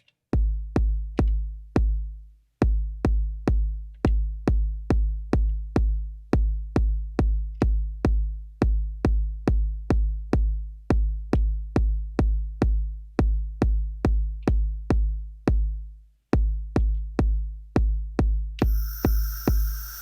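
Elektron Digitakt drum machine playing a lone deep kick drum in a steady pulse, about two hits a second. It stops briefly about two seconds in and again near the end. In the last second or so a hissing high layer with a few ringing tones joins it.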